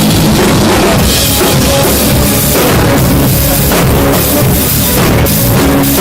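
Live band with drum kit, bass and guitar playing loud rock-style music during a sound check, recorded close to full scale so it comes across harsh and poor.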